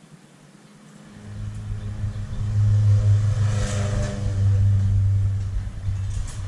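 A motor vehicle's engine running close by, swelling up over about a second and then holding a steady low drone.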